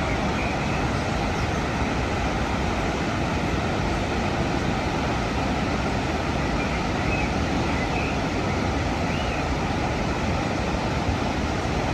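The Rhine Falls' water rushing steadily: a wide waterfall's even, unbroken noise with no let-up.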